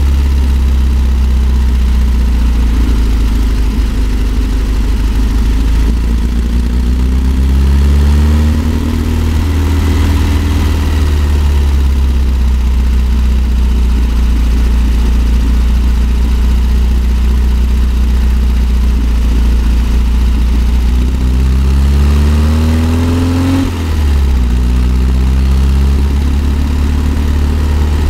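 1964 Volkswagen Type 2 microbus's air-cooled flat-four engine pulling uphill, with road and wind noise. Twice the revs climb and then drop back, about eight seconds in and again near twenty-three seconds. The second time there is a brief break in the sound, as at a gear change.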